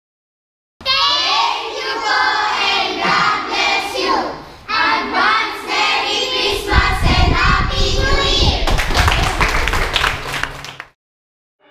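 A group of children singing together, joined by hand clapping in the second half. The sound cuts off abruptly near the end.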